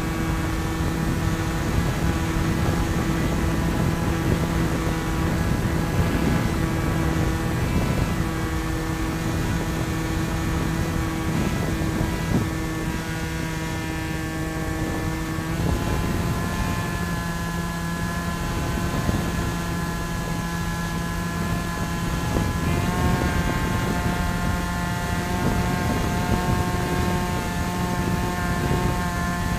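Onboard sound of a Bixler foam RC plane's electric motor and pusher propeller running, a steady whine over rushing wind. The whine changes pitch about halfway through and steps up again a few seconds later as the throttle changes.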